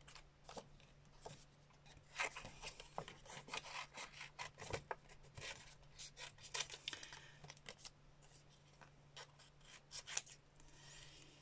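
Small scissors snipping through white card in many short, irregular cuts, with the card rustling and rubbing against the blades and fingers between cuts.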